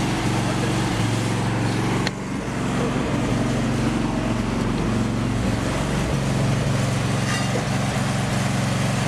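Engine running steadily, with a single sharp click about two seconds in.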